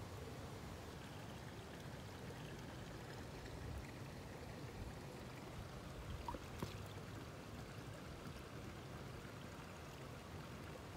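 Faint, steady rush of flowing creek water, with a couple of soft clicks a little past halfway.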